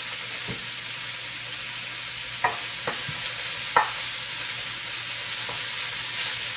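Diced red onion and green chillies sizzling in hot olive oil in a nonstick pan, being sautéed. A wooden spatula stirs them, scraping and tapping against the pan four or five times.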